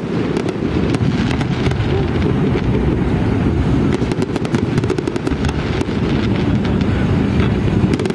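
Fireworks display: a continuous deep rumble of overlapping bursts with many sharp crackles and pops running through it.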